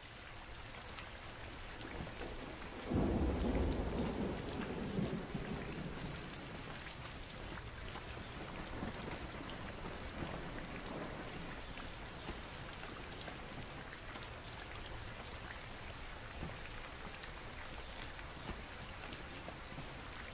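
Steady rain falling on water and ground, with a low rumble of thunder starting about three seconds in and fading over about two seconds.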